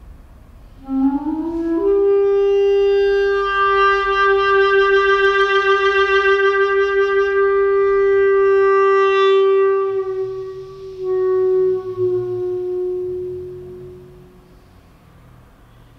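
Clarinet playing a quick rising run of notes into one long held note that pulses in the middle. After a short break comes a second, slightly lower held note that fades away.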